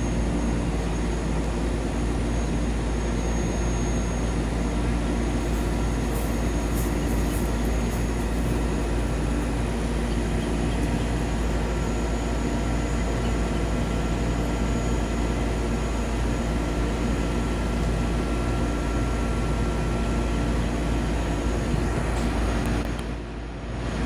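A heavy rotator tow truck's diesel engine runs steadily while its boom is at work, with a faint high steady whine over it. The sound dips briefly near the end.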